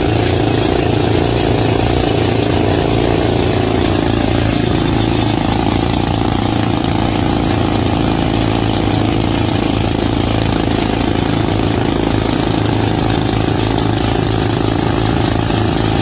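An engine running steadily with a loud, even hum. It does not change in speed or load.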